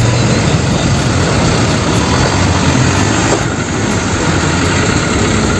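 Diesel engine of a small Hino Dutro fuel tanker truck running steadily: a low engine hum under a broad noisy wash.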